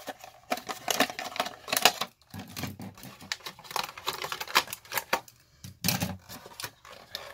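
Plastic gel pens being popped out of a moulded plastic tray and set down on a tabletop: a run of irregular clicks and clacks.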